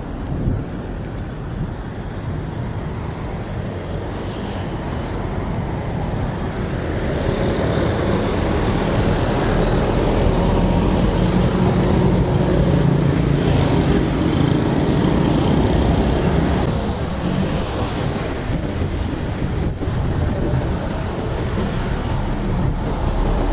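Street traffic heard from a moving bicycle: engines and tyre noise of cars, motorcycles and a small truck. It gets louder from about eight seconds in as the truck's engine runs just ahead, then eases after about sixteen seconds.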